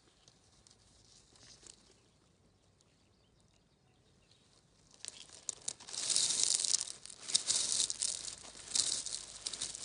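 Crisp rustling and crackling close to the microphone, starting about halfway through and coming in uneven bursts, loudest near the end.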